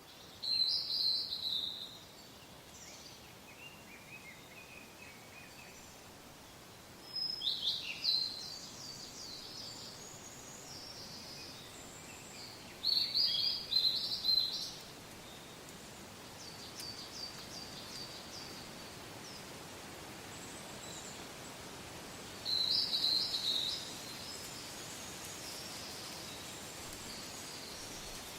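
Birds singing in short bursts of quick high notes, four loud phrases spaced several seconds apart with fainter chirps between, over a soft steady hiss of wind.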